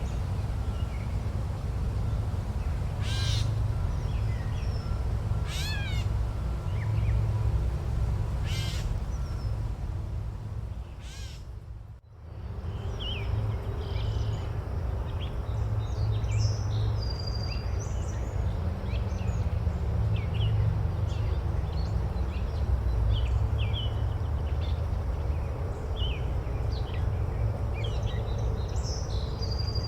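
Forest ambience: a bird gives four loud calls, about two and a half seconds apart, over a steady low rumble. Around twelve seconds in the sound briefly fades out and back in, and then many small birds chirp over the same rumble.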